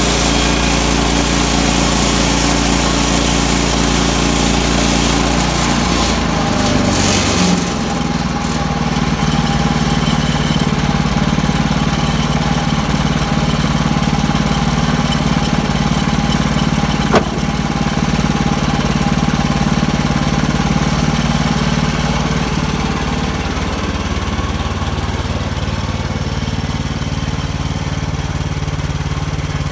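Portable sawmill's small gas engine running steadily while sawing a white pine log, its pitch shifting about six to eight seconds in. A single sharp tick sounds a little past the middle.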